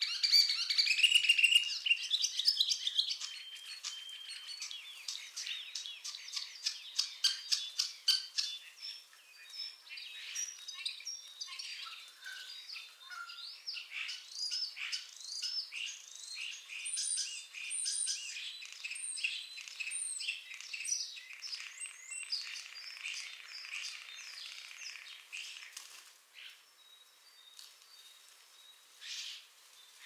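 Common starling singing: a long, varied run of whistles, chirps and fast clicking rattles. The song thins out over the last few seconds.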